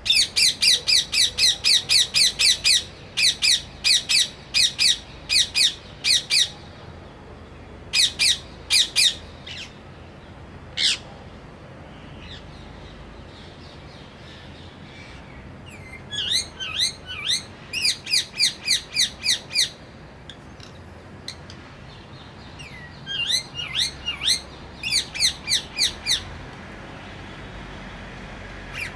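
A parrot giving runs of rapid, shrill, squawking calls, about five a second, in bursts of a few seconds with pauses between them.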